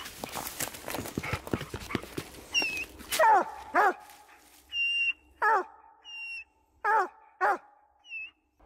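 Walker coonhound barking treed at a squirrel: after a few seconds of rustling in dry leaves, five sharp barks that drop in pitch, with short high squeals between them.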